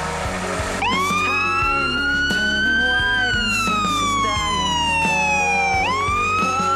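Fire engine siren starting up about a second in on a wail: the pitch climbs, slides slowly down, then climbs again near the end.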